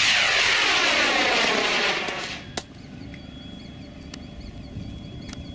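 K535 high-power rocket motor burning as the large model rocket climbs away: a loud steady rushing exhaust noise with a sweeping, falling swoosh to it. It fades and ends at burnout about two seconds in, with a single sharp click shortly after.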